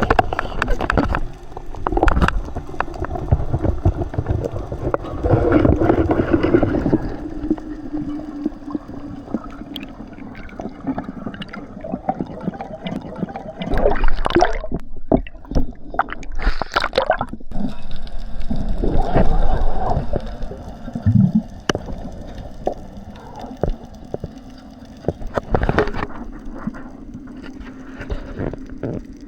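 Underwater sound: water gurgling and rushing past the microphone in uneven surges, with many sharp clicks and knocks and a steady low hum.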